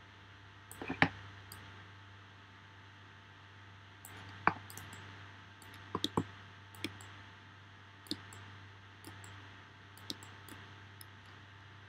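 Computer mouse and keyboard clicks: a quick cluster about a second in, then single clicks every second or two, over a low steady hum.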